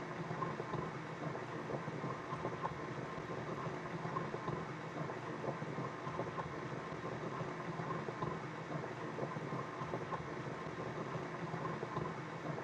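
Simulated sound effect of a water stream pouring into a tank from a fully open fill valve: a steady splashing hiss.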